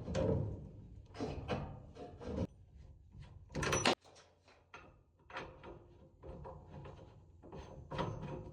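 A run of irregular knocks and clunks from things being handled, with a louder, sharp clack that cuts off abruptly about four seconds in.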